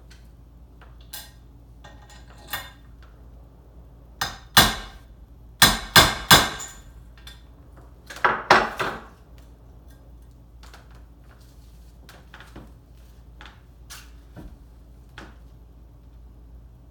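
Metal tools striking and clinking against metal engine parts during an engine rebuild: a few light taps, then two clusters of loud, sharp clanks with a brief ring, then scattered faint taps.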